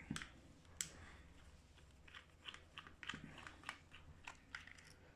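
A dozen or so faint, irregular light clicks and ticks of a tiny T6 Torx screwdriver turning small screws in a plastic headphone earcup.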